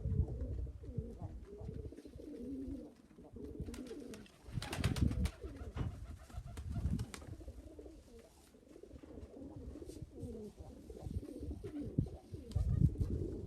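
Domestic pigeons cooing over and over, with a few louder low rumbles or thumps, one about five seconds in and another near the end.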